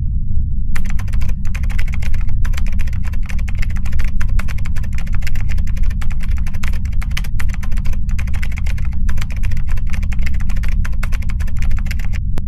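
Rapid computer keyboard typing clicks, starting about a second in and stopping just before the end, over a steady low drone.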